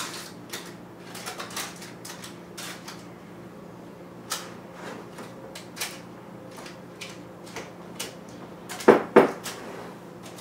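Milk chocolate chips being pushed around a parchment-lined baking pan with a spatula: scattered light clicks, taps and paper rustles, with two louder knocks close together about nine seconds in.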